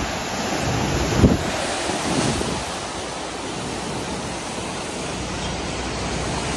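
Hurricane storm-surge waves crashing and washing ashore over a seawall, with strong wind rushing across the microphone. One wave breaks loudly about a second in.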